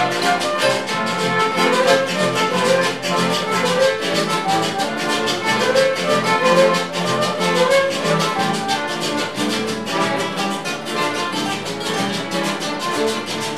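Instrumental Andean sonsureño folk music from a string band: strummed acoustic guitars and bass under a violin melody with accordion, on a steady dance beat.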